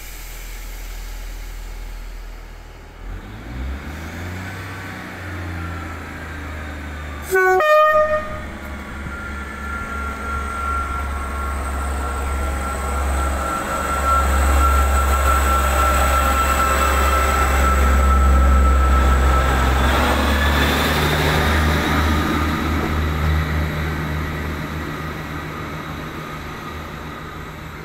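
Class 158 diesel multiple unit sounding a short horn blast about seven seconds in, then pulling away. Its diesel engine rumble builds with a steady whine, peaks as it passes, and fades as it leaves.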